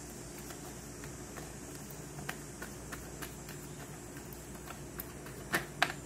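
A deck of tarot cards being shuffled by hand: faint scattered card clicks and taps over a low steady room hum, with two sharper taps near the end.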